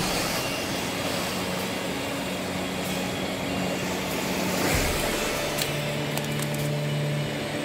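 Background music of long held low notes that shift to a new chord about five seconds in, over a steady rushing noise.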